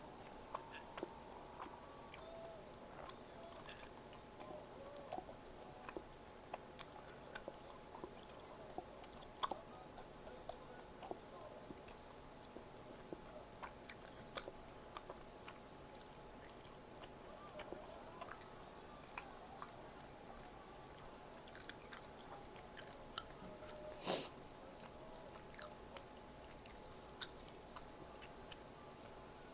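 Close-up chewing and biting of food, with scattered small crunching clicks and a louder click about 24 seconds in, over a faint steady hum.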